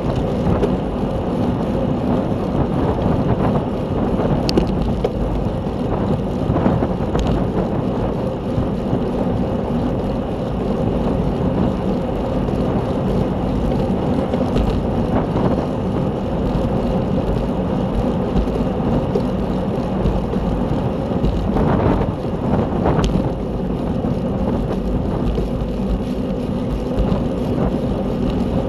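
Wind rushing over the microphone of a camera on a racing bicycle at speed, with steady road and drivetrain noise and a few sharp clicks.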